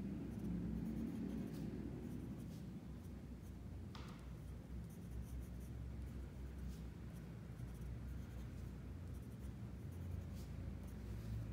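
Graphite pencil scratching faintly on paper in small drawing strokes, over a low steady hum, with one slightly sharper tick of the pencil about four seconds in.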